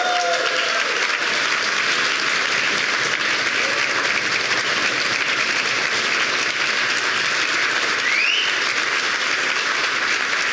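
Large auditorium audience applauding steadily, with one short rising whistle-like tone above the clapping about eight seconds in.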